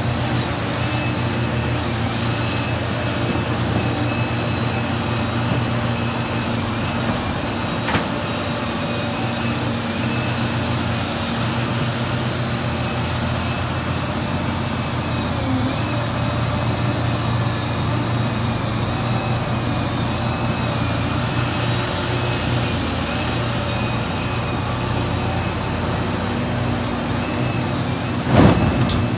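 Liebherr 976 crawler excavator's diesel engine running steadily under load, with a steady high whine over it as the machine digs and swings. Near the end, a loud crash as a bucketload of rock drops into a dump truck's bed.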